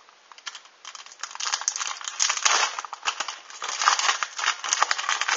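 Foil Pokémon booster pack wrapper crinkling as it is handled and torn open by hand, with many small crackles and clicks, louder from about a second and a half in.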